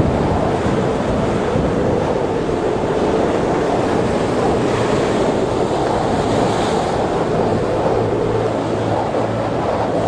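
Rough storm sea with heavy wind buffeting the microphone: a dense, steady rush of surf and wind, with a brighter hiss swelling briefly about two-thirds of the way through.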